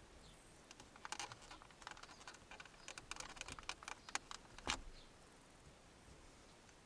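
Plastic knobs on an Audi 80's climate-control console being pulled and worked off by hand: a quick run of small plastic clicks and scrapes, with one louder knock about two-thirds of the way through.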